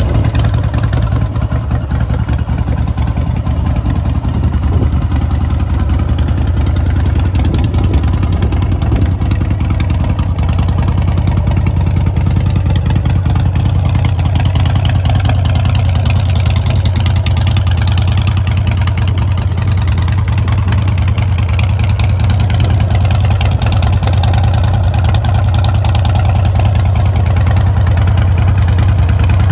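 Big Dog K9 motorcycle's 117-cubic-inch S&S V-twin engine idling steadily, a low, even rumble.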